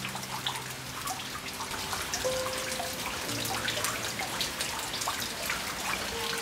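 Rain dripping, with many separate drops heard one after another, over soft background music of long held notes.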